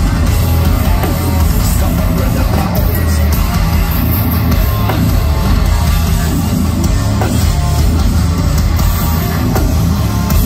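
Heavy metal band playing live at full volume, with drum kit, guitar and bass; the sound is steady and unbroken, recorded from the crowd.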